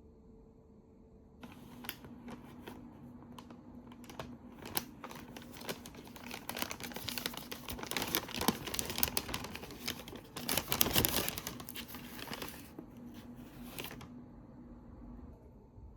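Crinkling and rustling of something being handled, with many small clicks. It starts about a second and a half in, is loudest about eleven seconds in, and stops about two seconds before the end.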